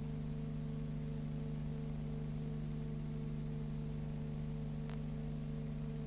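Steady electrical hum with hiss, with one faint click about five seconds in; no bird calls are heard.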